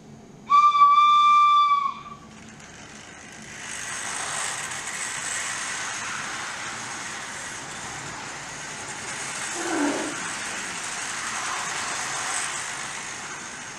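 A single steady, high whistle tone sounds for about a second and a half. Then the steady rumble and hiss of a model train running on the layout's track fades in and carries on: a Class 92 locomotive hauling hopper, Trestol and container wagons.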